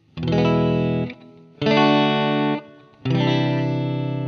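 Background music: a distorted electric guitar playing three held chords, each about a second long, with short gaps between them.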